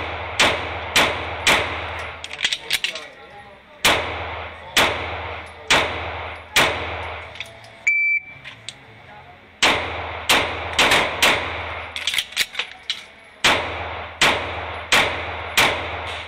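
Pistol shots echoing on an indoor range in two strings: four quick shots about half a second apart, a pause for a magazine reload, then four more at a slower pace. About eight seconds in, a shot timer beeps once and the same pattern of four shots, reload, four shots follows.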